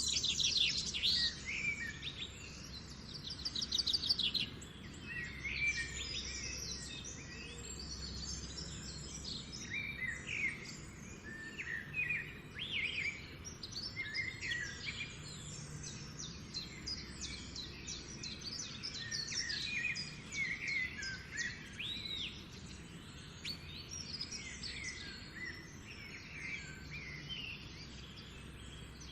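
A chorus of several songbirds chirping and trilling over one another, calls overlapping throughout, over a steady low background rumble.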